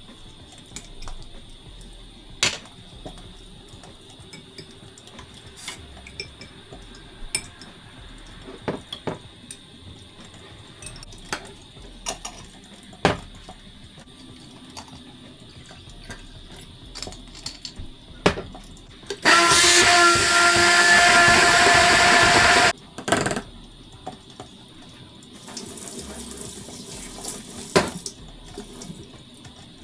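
Scattered light clicks and knocks from handling things, with a loud stretch of running water, about three and a half seconds long, starting around two-thirds of the way in. A fainter rush follows a few seconds later.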